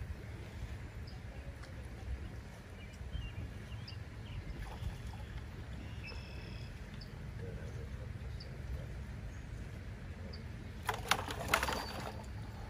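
Small birds chirp now and then over a steady low outdoor rumble. Near the end comes a brief burst of splashing and knocking, as hands work in a plastic bucket of water.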